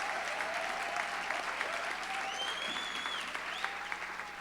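Audience applauding, the clapping slowly dying down, with a few faint voices in the crowd.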